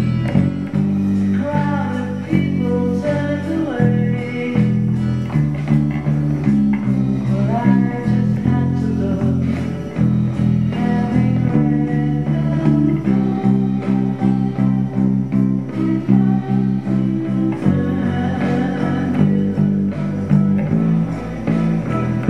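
Jazz Bass-style electric bass guitar playing a steady line of low notes along with recorded rock music, with higher melodic parts sliding in pitch above it.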